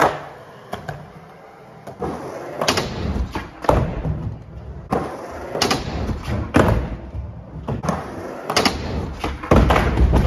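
Skateboard rolling on plywood ramps, with repeated sharp clacks of the board popping and the wheels landing, and a heavy thud near the end as the skater falls.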